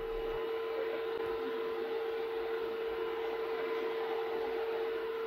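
A steady tone held at one pitch with faint overtones, over low, even background noise.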